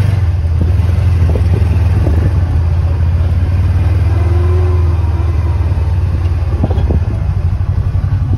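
Kubota Sidekick utility vehicle's gasoline V-twin engine running steadily as it drives with the snow plow. Near the end the engine note drops and turns pulsing.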